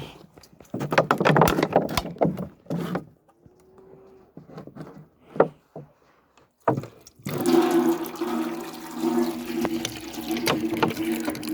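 Water being poured out of a carried container: a splashing pour, a few knocks, then from about seven seconds in a steady gushing stream with a hollow ringing note, like water running into a vessel.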